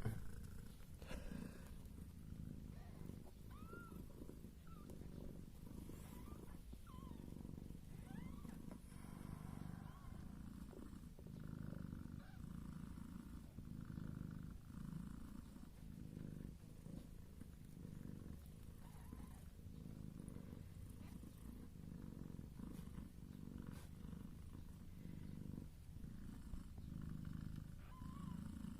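Mother cat purring steadily while her newborn kittens nurse, a soft, low, rhythmic purr that swells and eases.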